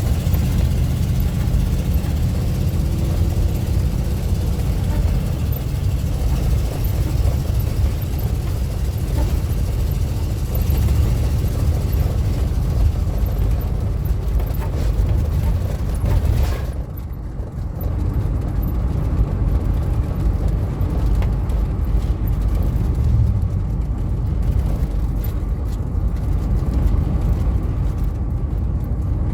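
Steady low rumble of a car driving, road and engine noise heard from inside the cabin, with a brief dip in level a little over halfway through.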